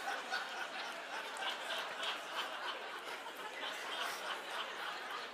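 Congregation reading silently, with scattered soft chuckles and low murmuring.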